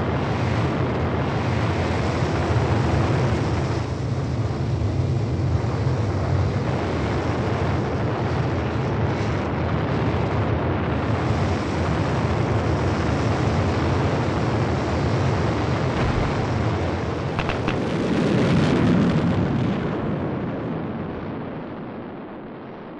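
Flight sound effect: a steady rushing roar with a deep rumble beneath it. It swells about eighteen seconds in, then fades away over the last few seconds.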